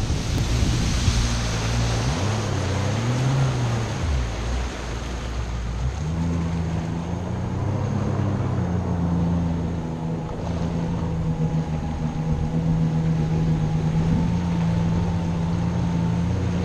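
Jet ski engine running under way, with water rushing and spraying off the hull. The engine note swings up and down in the first few seconds, then holds steady.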